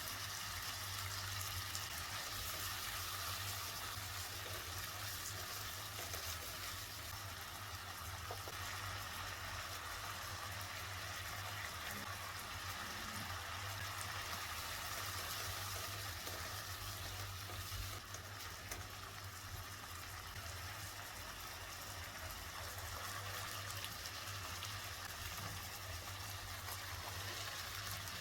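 Food cooking in a pan on the stove: a steady, even sizzling hiss with the bubbling of liquid.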